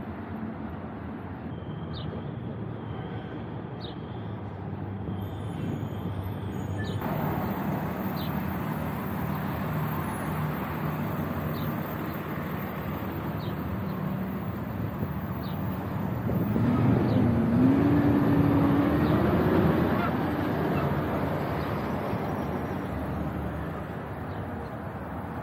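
City street traffic noise, with one vehicle passing louder about two-thirds of the way in, its engine note rising in pitch.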